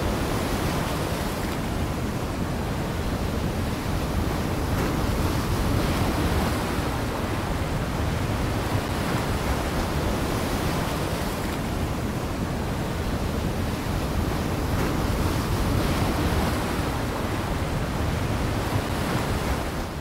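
Steady rushing noise, even throughout.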